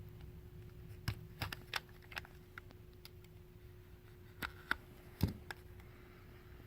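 Scattered light clicks and taps of hands working a cardboard trading-card hobby box open, over a faint steady hum. The box is stubborn to open.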